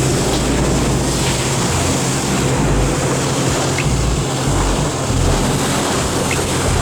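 Steady loud rush of ocean surf and wind noise, with a low hum underneath.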